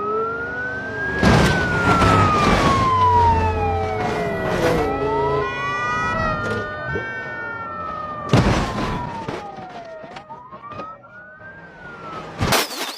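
A siren wailing, its pitch rising and falling in long slow sweeps, with several loud crashes and bangs over it.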